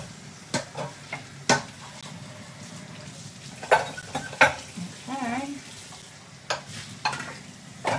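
Dishes and cooking utensils clattering in a series of sharp clinks and knocks, over a steady frying sizzle.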